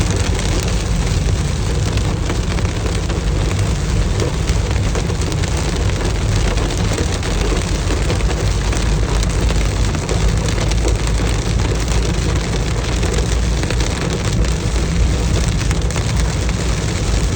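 Heavy rain falling: a steady, dense hiss that never lets up, with a strong low rumble underneath.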